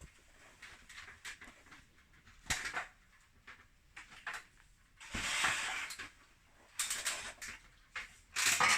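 Irregular scrapes and knocks of plastering work on a wall skimmed with liquid putty, the longest scrape about five seconds in, with a sharp knock earlier.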